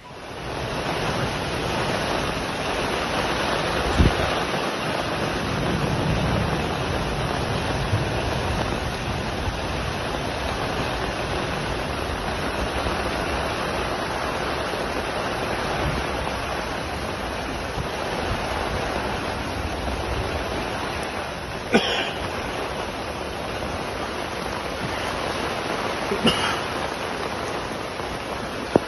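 Heavy rain falling in a steady loud hiss, with a few sharp cracks: one about four seconds in and two more in the last third.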